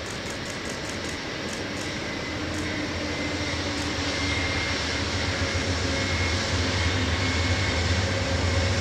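Amtrak train led by two GE Genesis diesel-electric locomotives rumbling across a girder bridge, the engines' low drone growing steadily louder as the train comes closer, with a faint high whine above it.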